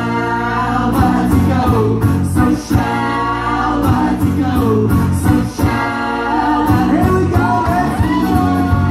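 Live folk-rock band playing: long held sung notes over guitar, fiddle and a steady drum beat.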